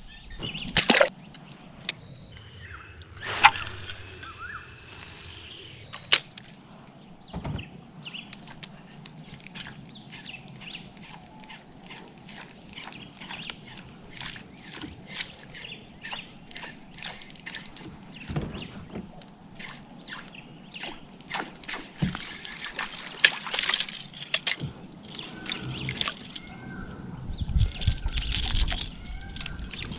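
Water sloshing and lapping around a kayak, with scattered sharp knocks and clicks of fishing gear being handled on the hull. A faint high note repeats about once a second through the middle, and the knocking gets busier near the end.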